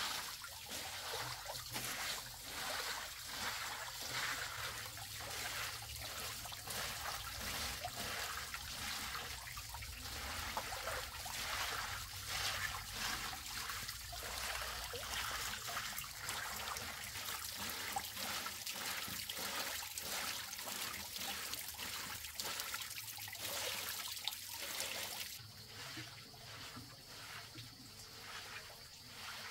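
Water trickling and splashing steadily with irregular small splashes, turning quieter near the end.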